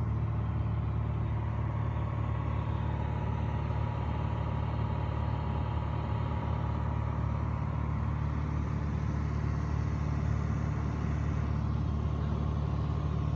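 Piper Dakota's six-cylinder Lycoming O-540 engine and propeller droning steadily in cruise, heard from inside the cabin.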